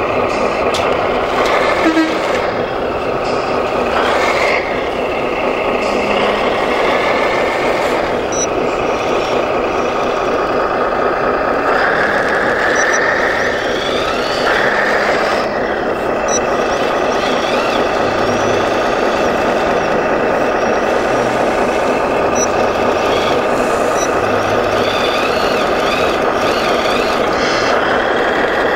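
Radio-controlled model trucks and a model wheel loader working sand: a steady mechanical running sound from their drives and hydraulics, rising in pitch a few times, about halfway through and near the end.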